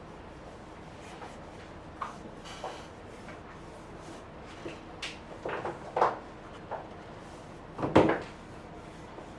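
A series of short knocks and taps, like objects set down or handled on a desk, scattered and uneven, with a cluster about five to six seconds in and the loudest knock about eight seconds in.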